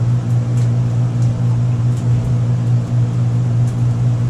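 Steady low machine hum of the food truck's running equipment, with water being poured slowly from a jug into a plastic tub on a scale.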